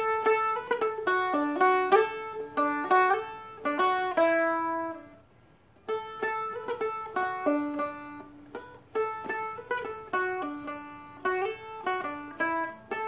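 A Seagull Merlin M4 four-string diatonic fretted instrument, played slowly with a pick as a single-note melody. The notes stop about five seconds in, and after a pause of about a second the phrase starts again.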